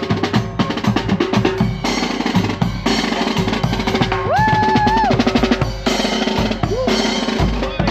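Marching band drum line playing a cadence on snare drums, bass drum and cymbals, in a steady, busy rhythm. A single held pitched note glides up and sustains about halfway through.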